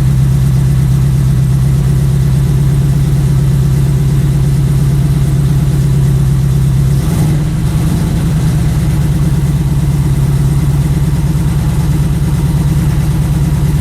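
Ford Cleveland V8 idling steadily on a cold start; its idle speed steps up slightly about seven seconds in.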